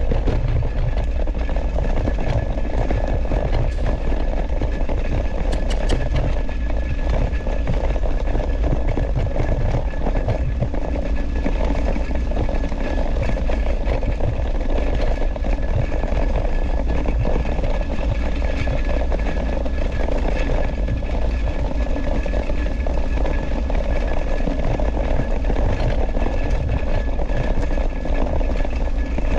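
Steady wind rush and rumble on a handlebar-mounted action camera's microphone, with the rattle and tyre noise of a dog scooter rolling fast over a grassy dirt trail.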